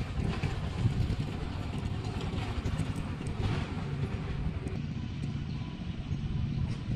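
Rabbits chewing fresh leafy stems: a few faint crisp crunches over a steady low outdoor rumble.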